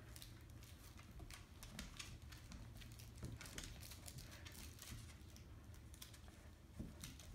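Faint, irregular clicking and tapping of dogs' claws on a hard vinyl floor as two dogs shift their feet, tugging over a plush toy.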